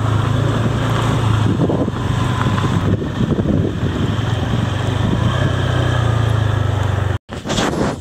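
Motorbike engine running steadily under way, with wind buffeting the microphone. It breaks off suddenly near the end.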